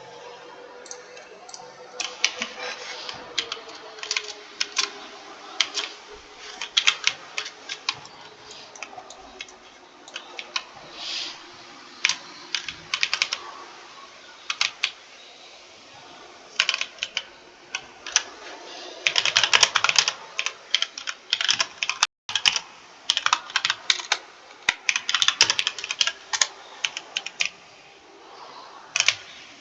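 Computer keyboard being typed on, rapid key clicks in irregular bursts with short pauses between them, busiest about two-thirds of the way through.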